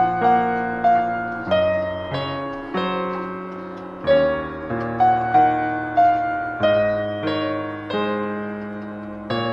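Background music: a gentle piano melody, with notes and chords struck about twice a second and each fading away.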